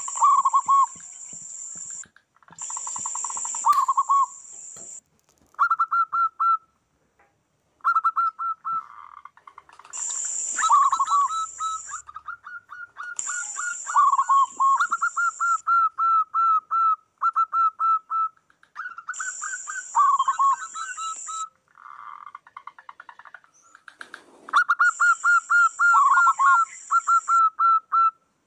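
Several zebra doves (perkutut) cooing and answering one another in fast runs of short, clear notes, at times overlapping at two pitches. A high steady buzz comes and goes in stretches of about two seconds.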